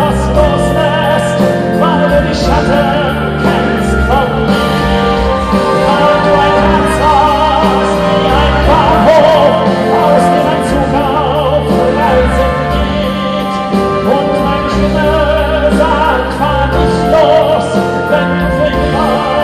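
Music: a passage of a pop ballad with no lyrics sung, a wavering vibrato melody line over sustained chords and a steady bass.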